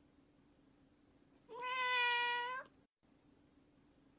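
A single drawn-out animal cry, held at one steady pitch for about a second, starting about a second and a half in.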